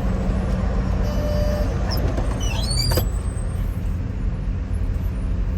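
Steady engine and road rumble inside a vehicle's cabin, with a brief high squeak about two and a half seconds in and a sharp click at about three seconds.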